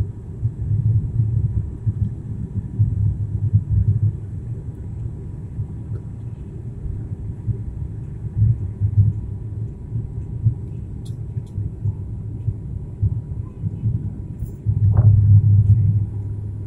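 Steady low drone of a high-wing turboprop airliner's engines and propellers, heard from inside the cabin during descent, swelling louder for a second or two near the end.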